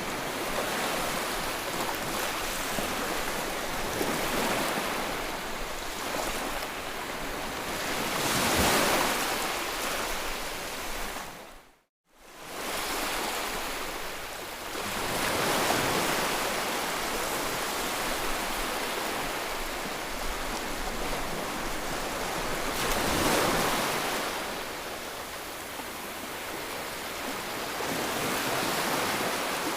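White-noise track for soothing a colicky baby: a steady rushing hiss across all pitches that swells and fades slowly, cresting roughly every seven seconds. It cuts out abruptly to silence for a moment about twelve seconds in, then comes back.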